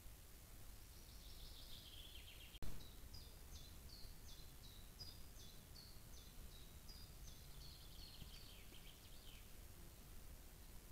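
Small songbirds singing faintly. A descending trill comes twice, and between the trills a run of short two-part high notes repeats about twice a second. A single sharp click comes about two and a half seconds in.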